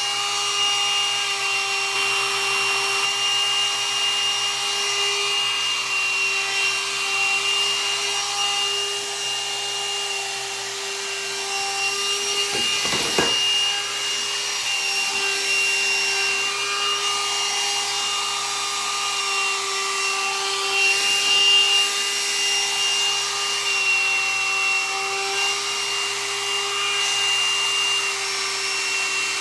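Hot-air dryer brush running steadily: its fan motor's whine over rushing air, with a brief knock about halfway through.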